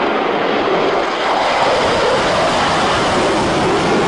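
Fighter jet engine noise, a loud, steady rushing as the jet pulls up into a steep climb after a low pass.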